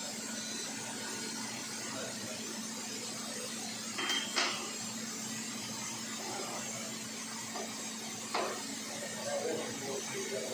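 A HAIMER Power Clamp shrink-fit machine running with a steady hum and hiss. A short beep and a couple of clacks about four seconds in, and another clack about eight seconds in, as the coil unit and tool holder are handled.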